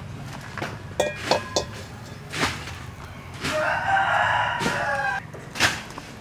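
A rooster crowing once, a long wavering call starting about three and a half seconds in, with a few sharp clicks before and after it.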